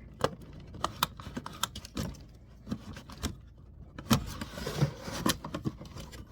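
Irregular sharp plastic clicks and knocks as laptop parts are handled and pulled apart during disassembly, with a brief rustle about halfway through.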